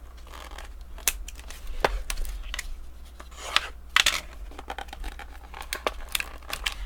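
Cellophane wrapper on a pack of trading cards crinkling and tearing as it is opened by hand, a string of irregular sharp crackles.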